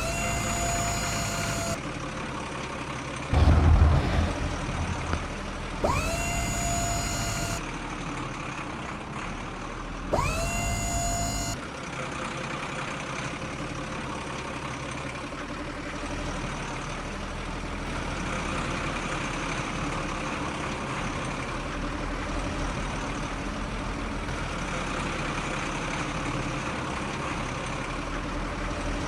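Heavy machinery engine running steadily. Three times, near the start, about six seconds in and about ten seconds in, a rising whine climbs and then holds a steady tone for a second or two. A loud, deep rumble comes about three and a half seconds in.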